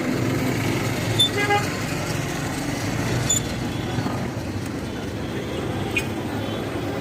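Steady street traffic noise with brief horn toots, about a second in and again past three seconds.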